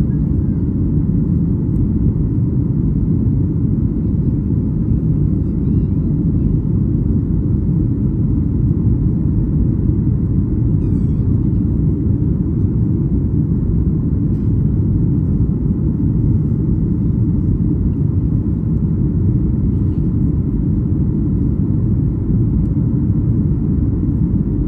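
Steady low cabin rumble of a Boeing 737-8200 in flight: the CFM LEAP-1B engines and airflow over the fuselage, heard from inside the passenger cabin.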